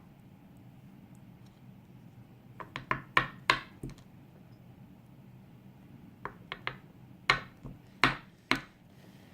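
Small metal lock parts clicking and tapping as a dimple lock is taken apart to dump its pins: a cluster of sharp clicks about three seconds in, then a second run of clicks later on.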